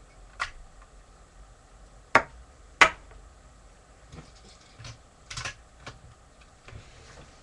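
Sharp plastic clicks and knocks from a Lego brick-shooter gun being worked, the loudest a little after two seconds and near three seconds in, with lighter clicks through the second half.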